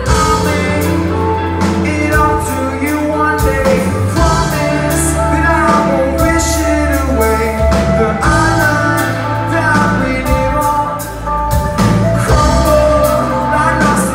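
Live rock band playing a song with lead vocals over electric guitars, bass and drums, heard loud from among the audience.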